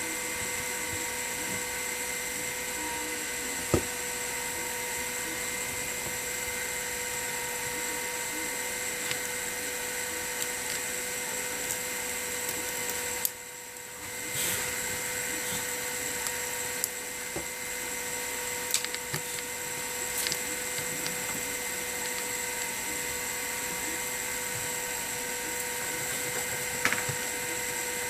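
A small electric motor or blower running with a steady whine and hiss. It cuts out briefly about halfway through and then starts again, with a few light clicks of tools on the phone.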